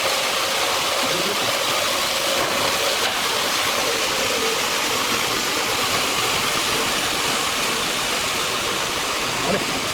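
Sawmill machinery running steadily: a continuous, even rushing noise with a faint hum underneath.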